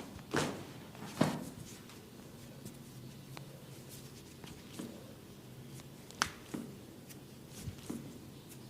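Barber's hands during an Indian head massage: a few sharp slaps and cracks, two strong ones about a second apart near the start and another sharp crack about six seconds in, with lighter ticks between them.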